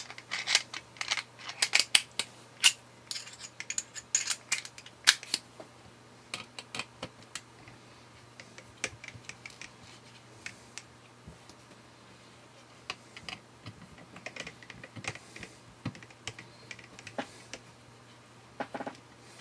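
Hand screwdriver backing small screws out of a solar power bank's plastic case and circuit board: a run of light clicks and ticks, dense for the first five seconds or so, then sparser and more scattered.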